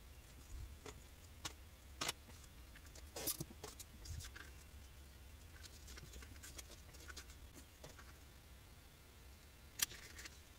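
Scattered light taps and clicks of leather pieces and a small hand tool being picked up and set down on a cutting mat, a few seconds apart, the sharpest one near the end.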